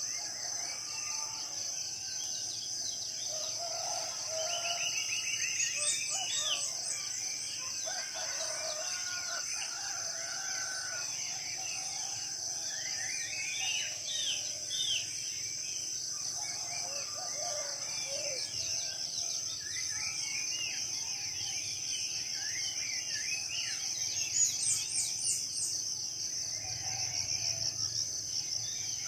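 Morning chorus of many forest birds chirping and calling over one another, against a steady high-pitched insect buzz.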